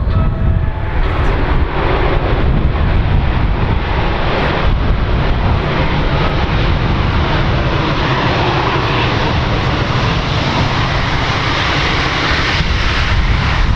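Airbus A350-900 airliner's Rolls-Royce Trent XWB turbofans heard during its landing approach: a steady jet rush over a deep rumble, stepping up in loudness about two seconds in.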